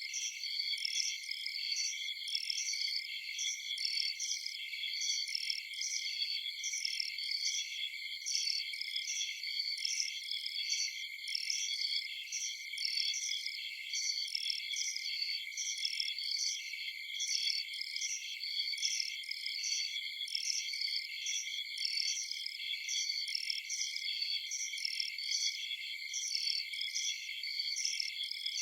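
Night chorus of crickets and other insects: several steady overlapping high trills, with a pulsing call repeating about twice a second on top.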